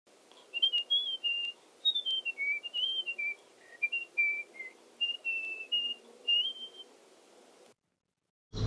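A person whistling a short tune: a string of clear, held notes stepping up and down in pitch, ending about seven seconds in.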